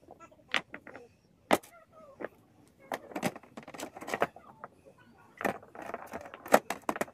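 Irregular knocks and clatters of hard objects being handled, some sharp and loud, at uneven intervals.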